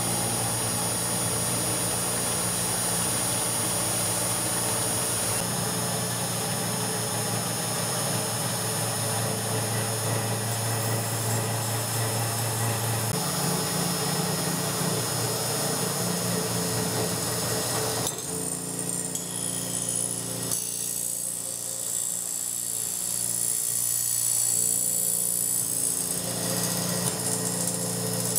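Homemade CNC milling machine running, its spindle turning an end mill that cuts a metal cam blank. The machining noise is steady, with a change in tone about two-thirds of the way through as the middle of the sound thins out.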